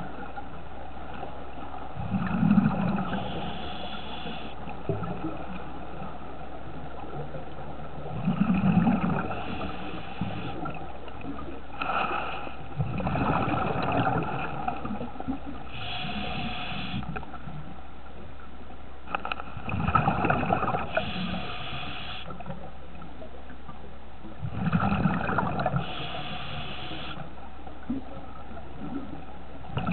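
Scuba diver breathing through a regulator, heard underwater through the camera housing: a gurgle of exhaled bubbles about every five to six seconds, each followed by the short hiss of an inhalation, over a steady low hum.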